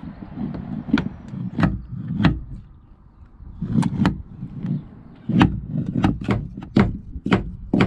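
Wooden mallet knocking on timber: a run of irregular, solid blows, with a short pause a little before the middle.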